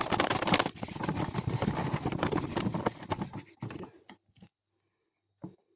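A mixture being beaten by hand in a bowl: fast, continuous scraping strokes that fade out about four seconds in, then a single short knock near the end.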